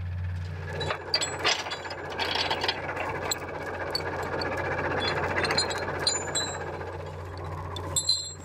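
Forestry machine's engine running steadily with a low hum, while metal chains rattle and clink irregularly, starting about a second in and with a few sharper clinks near the end.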